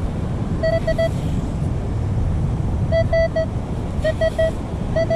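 Metal detector giving short, identical target beeps in quick runs of three to five, several times, as it is swept over sand spread out from a scoop holding a coin. A steady low rumble runs underneath.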